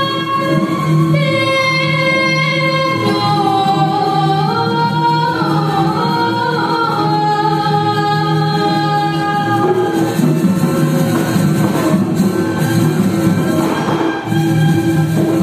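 Balinese vocal ensemble singing pupuh Ginanti, a traditional sung verse form: long held notes with slow melismatic turns over a steady low drone.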